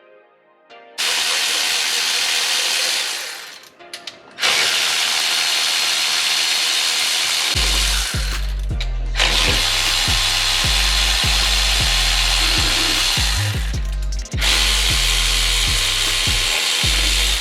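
A handheld power tool runs in four long bursts, a few seconds each with short breaks between, as bolts are taken out during an engine teardown. Background music with a heavy bass beat comes in about halfway through.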